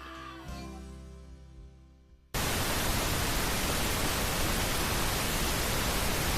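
Closing music tones fading away, then, a little over two seconds in, a sudden burst of steady, even static hiss, a TV-static sound effect that runs on unchanged.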